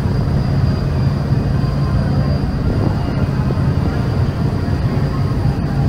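Large passenger ferry's diesel engines running steadily underway: a constant low rumble with a steady hum, mixed with the wash of water along the hull.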